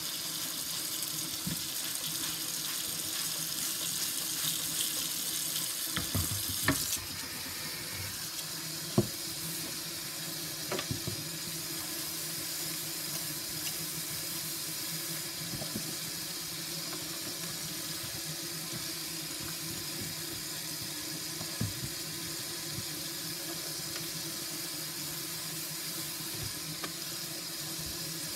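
Kitchen faucet running into a stainless steel sink full of soapy water, with a gloved hand swishing through the suds. A few sharp knocks against the sink, the loudest about nine seconds in.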